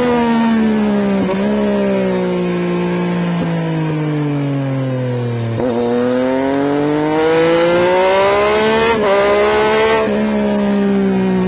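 Triumph Street Triple's inline three-cylinder engine and exhaust, heard from under the seat, running at speed on track. The engine note falls as the bike slows, with short blips at downshifts, then climbs steadily from about halfway. It breaks sharply at a gear change near the end, then eases off.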